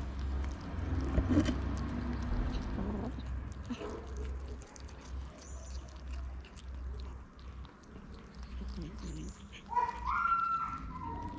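Kittens eating wet cat food from a plate, with small wet chewing and smacking clicks. About ten seconds in, one kitten gives a short meow that rises in pitch.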